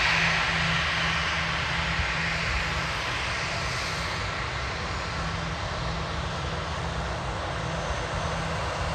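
Airbus A320 twin jet engines running at low taxi power. The high whine and hiss fade over the first few seconds as the engine intakes turn away, leaving a steady low rumble.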